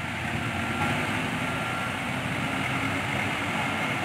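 Heavy truck engines running as trucks pass close by: a steady low engine rumble with road noise, growing a little louder near the end as a truck comes past.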